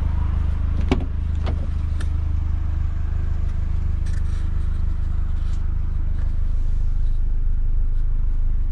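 Opel Astra OPC's 2.0-litre turbocharged four-cylinder idling steadily, a low even hum. About a second in, the driver's door handle and latch click twice as the door is opened.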